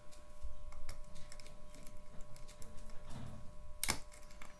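Small irregular metallic clicks and scrapes of a lock pick working the pin stacks of a five-pin challenge lock core under tension, with one sharper click about four seconds in.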